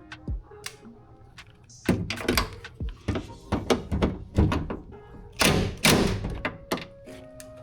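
Irregular knocks, thunks and clatter of hand tools and hardware against the inside of a car door during reassembly, busiest in the middle with the loudest knocks a little after five seconds in. Faint background music underneath.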